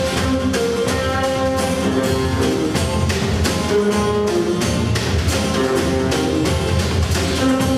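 Guitars strumming a Christmas carol in a steady rhythm, about four strums a second, under a held melody line that moves from note to note.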